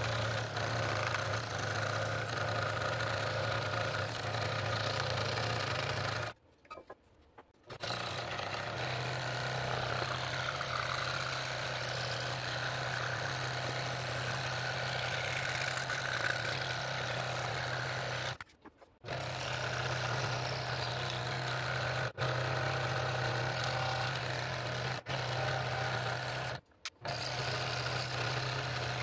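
Scroll saw running steadily, its reciprocating blade cutting through wood, with a steady motor hum under the rasp of the cut. The sound drops out briefly several times, longest a little over a second.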